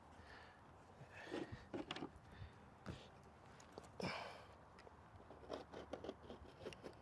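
Faint scraping and rustling of thick carpet padding being handled and cut with a box cutter, with scattered light clicks and knocks and one louder scrape about four seconds in.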